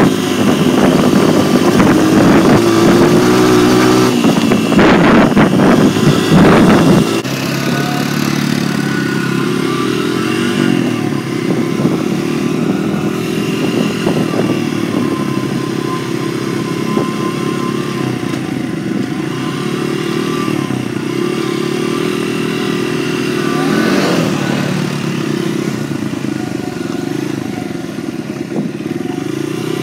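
Dirt bike engine running while riding along a gravel road. It is louder for about the first seven seconds, then settles to a steadier, lower level.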